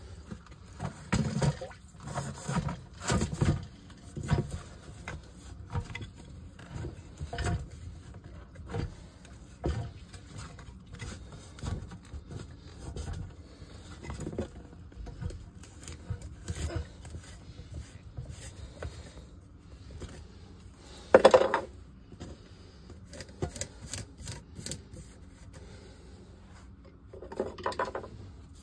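A plastic sump basin lid being scraped, rubbed and shifted over the pit rim, with irregular handling noises and knocks; one loud knock comes about three quarters of the way through.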